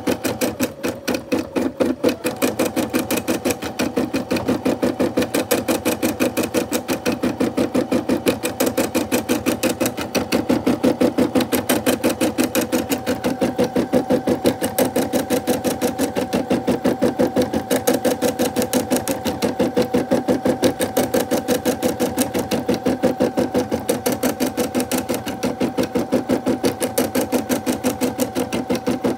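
Brother SE600 embroidery machine stitching out a design in a fast, even rhythm, the needle mechanism running steadily without a break.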